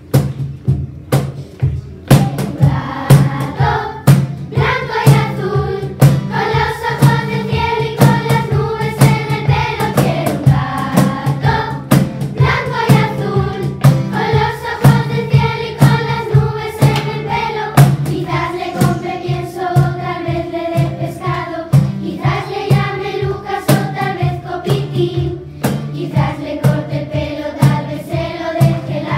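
Children's choir singing a Spanish children's song, with acoustic guitar and a cajón keeping a steady beat; the voices come in about two seconds in.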